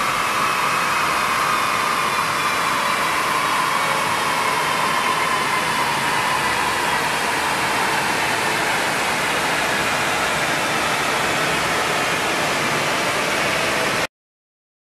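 Steady rushing of a chassis-dyno cooling blower aimed at the car, with a faint whine that slowly falls in pitch. The sound cuts off abruptly about a second before the end.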